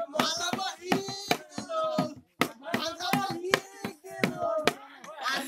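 Several voices singing a Bihu song, with sharp hand claps about twice a second.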